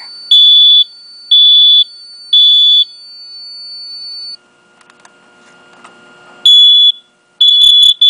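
Smoke alarm's piezo horn sounding its fire alarm: three loud, high-pitched beeps about a second apart in the standard three-beep pattern, then a pause of about four seconds and two more beeps near the end.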